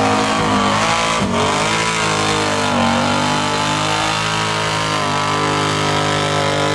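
Lifted ATV's engine revving hard as its oversized tires churn through thick, deep mud, the pitch rising and falling as the throttle is worked.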